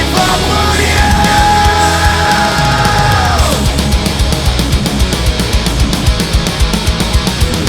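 Heavy rock backing music with distorted guitars and drums; a held guitar note bends down and fades about three and a half seconds in, then fast drum hits carry on.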